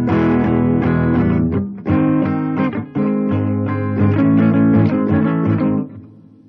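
Electric guitar played through a treble booster fitted with 2 nF input and output capacitors, which cut the lows and boost the treble: a run of strummed chords that stops about six seconds in and rings away.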